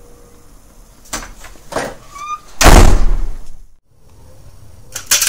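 A door slammed hard, a heavy thud and the loudest sound, just past halfway. A couple of lighter knocks come before it, and a quick run of sharp clicks near the end.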